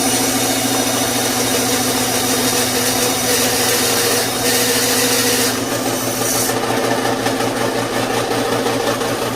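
Power saw motor running steadily while cutting wood, with a louder hiss of the cut from about three seconds in that falls away about two-thirds of the way through.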